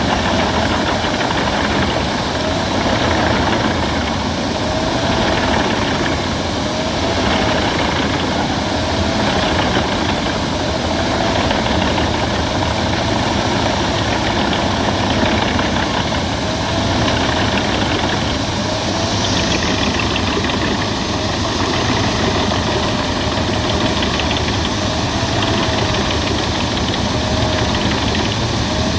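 Albach Diamant 2000 wood chipper running steadily, engine and rotor at a constant speed, with a tone that wavers up and down about every second and a half.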